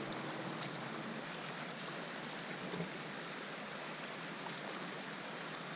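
Steady flowing water of a small creek, an even rushing hiss with a few faint ticks.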